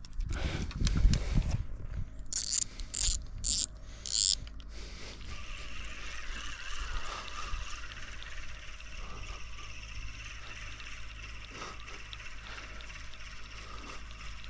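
Carp rod and reel being handled, with four short rasping clicks from the reel about two to four seconds in, then a steady faint lakeside background.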